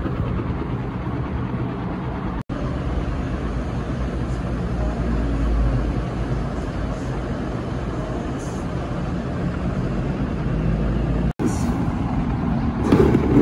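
Construction noise from outside: the steady low rumble of a heavy engine running, with a brief louder burst near the end.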